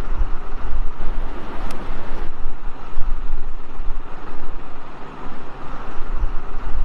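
Ceiling fan switched on after repair, its airflow buffeting the microphone: a loud, steady rush of air with uneven low rumbling gusts.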